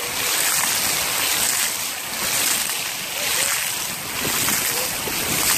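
Fountain water jets spraying up and splashing down close all around, a steady rushing hiss of falling water that swells and eases.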